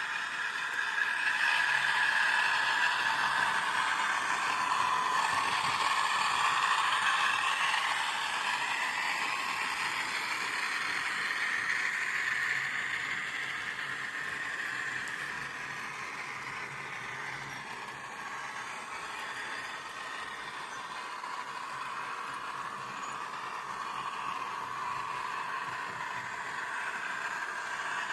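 OO gauge model locomotives running on the track: electric motor whine and the rattle of wheels on rail, with the pitch shifting as the trains change speed. Louder for the first several seconds, quieter around the middle, then building a little again.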